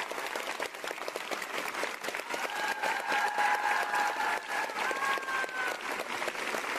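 Large audience applauding steadily, the clapping of many hands.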